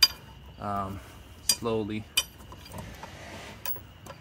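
A few sharp metallic clinks of a lug wrench on a wheel's lug nut as the nut is worked off the stud, the loudest right at the start.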